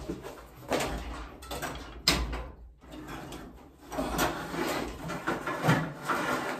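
A heavy cast-aluminum light fixture and its metal hanging rods scraping and clanking as it is brought down a stepladder, with a sharp knock about two seconds in.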